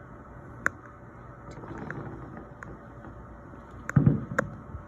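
Distant fireworks heard from indoors over a steady low room hum: a sharp pop under a second in, then a louder low boom with crackling about four seconds in.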